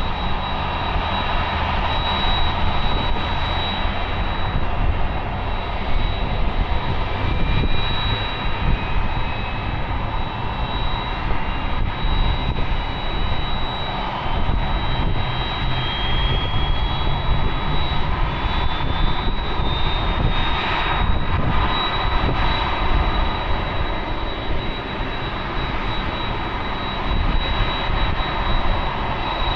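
Jet airliner engines running with a steady loud rush and a high whine, while a second whine slowly rises in pitch over about ten seconds.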